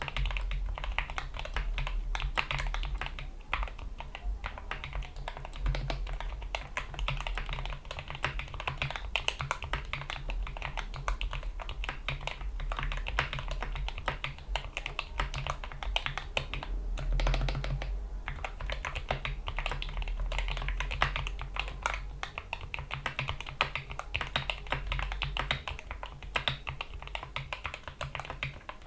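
Continuous fast typing on a GK61 mechanical keyboard with lubed Gateron Yellow optical linear switches, PBT keycaps and rubber O-rings under the keycaps: a dense, irregular stream of keystroke clicks.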